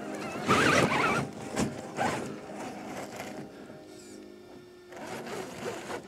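Whir of an Axial SCX6 1/6-scale electric RC crawler's motor and gears in short bursts as it works its way up a climb, over background music.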